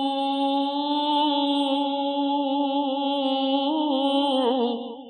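A male voice singing a Sufi devotional kalam, holding one long steady note. About four and a half seconds in, the note breaks into a wavering ornament, then trails off near the end.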